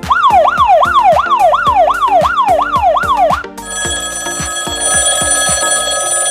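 Novelty sound effects machine playing a siren effect, a fast wailing sweep that rises and falls about three times a second. Just past halfway it switches to a steady electronic ringing tone. Both play over background music with a steady beat.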